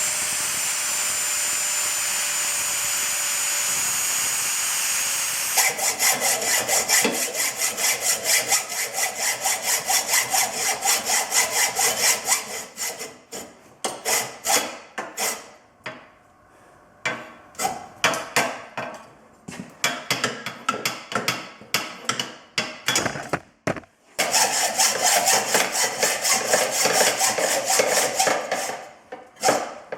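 An angle grinder's cutting disc grinding through a steel engine-mount bracket for about five seconds with a high whine, then a hacksaw sawing the same bracket in steady back-and-forth strokes, about two a second, with short pauses. The hacksaw finishes a cut that the cutting disc could not get through.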